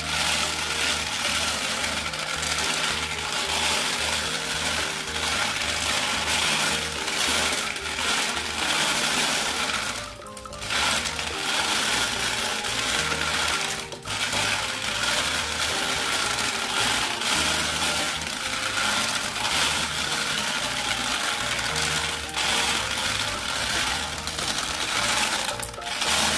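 Glass marbles rattling and clinking as they tumble in a plastic toy cement-mixer drum and roll out down its plastic chute, over background music with a stepping bass line.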